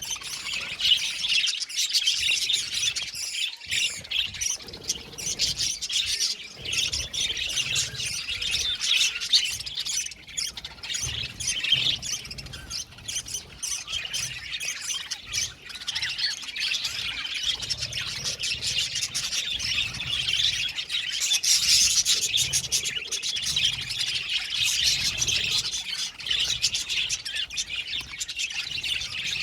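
A flock of budgerigars chattering, chirping and squawking together without a break: many overlapping short, high-pitched calls.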